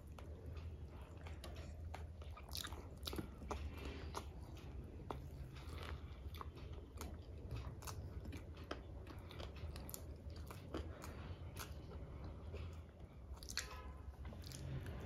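Two people chewing and biting into burgers close to the microphone: frequent small, wet mouth clicks and soft crunches, over a low, steady hum.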